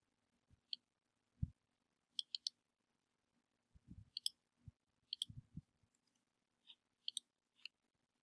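Faint, irregular clicking of a computer pointing device: about a dozen short, sharp clicks with a few soft low knocks between them.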